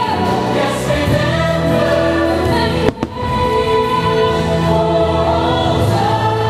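Holiday fireworks show soundtrack played over the park's loudspeakers: a choir singing long held chords over orchestral music, with a brief dropout about three seconds in.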